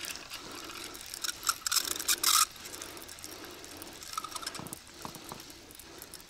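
Fishing reel winding in line with a hooked fish on, its gears clicking. A loud run of fast clicks comes from about one and a half to two and a half seconds in.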